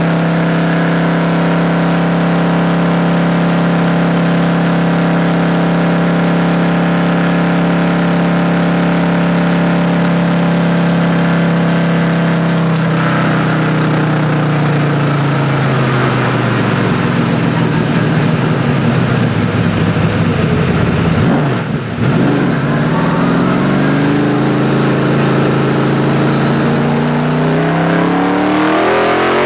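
All-forged roller small-block Chevrolet V8 of a 1985 IMSA TransAm Buick Somerset race car, heard from the cockpit. It is held at a steady high pitch for about thirteen seconds, then the revs fall away slowly for several seconds. After a brief dip in loudness they climb again under acceleration.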